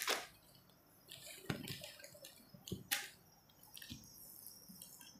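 Printed cotton suit fabric being unfolded and spread out by hand: soft rustles and flaps of the cloth in a few separate bursts, with a couple of light knocks about a second and a half in and near three seconds.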